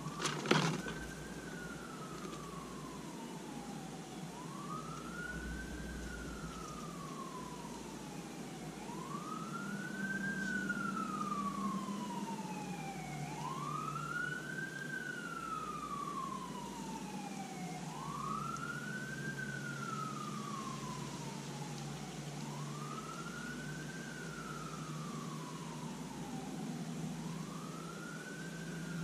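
A distant siren wailing, each cycle rising quickly and falling slowly, about every four and a half seconds, with a fainter, higher second siren wailing along for a while in the middle. A sharp knock about half a second in is the loudest moment.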